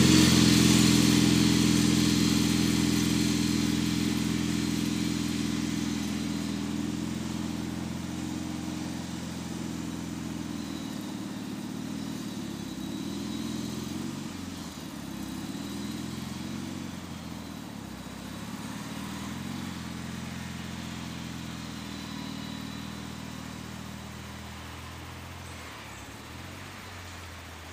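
Gravely tractor engine running while out plowing snow, growing steadily fainter as the tractor moves away, with a couple of brief swells partway through.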